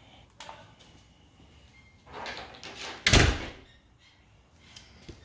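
Rustling and scraping, then one loud, short thump about three seconds in, from hands and tools working on the car's body panels.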